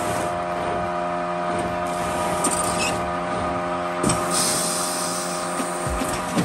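ILPRA Speedy vacuum skin packaging machine running with a steady machine hum as its conveyor feeds trays in, with short hisses of air about two and a half and four and a half seconds in and a knock about four seconds in.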